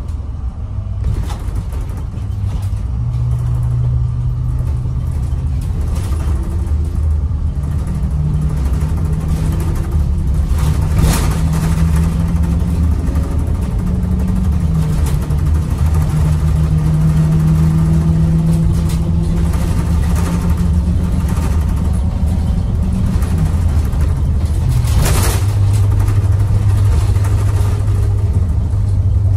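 International VT365 V8 turbodiesel of a 2007 IC CE200 school bus, heard from inside the cabin while driving, pulling through the gears with its pitch climbing and dropping at the shifts and falling back lower near the end. It is running on freshly replaced injectors after three injector faults. Twice a sharp knock or rattle rings out from the bus body.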